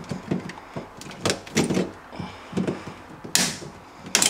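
Handling noise inside a fridge compartment: irregular clicks, taps and knocks of tools against plastic parts, with a short rasp about three seconds in and a sharp snap just before the end.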